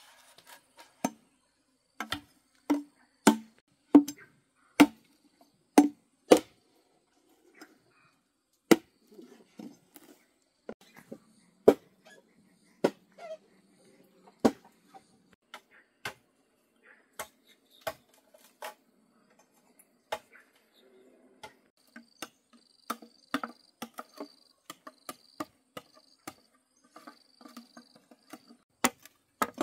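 Knife chopping on a wooden cutting board: a run of sharp chops about every three quarters of a second at first, then more spread out, with smaller knocks between.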